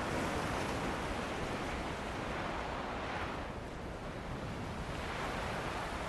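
Ocean waves washing onto a beach with wind: a steady rush of surf that eases off midway and swells again near the end.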